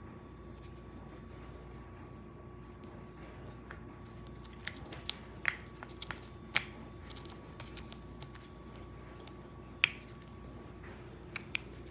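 Small metal parts of a Kawasaki 750 jet ski carburetor clicking and clinking against each other and the tools as it is put back together: a handful of sharp, separate clicks over a faint steady hum.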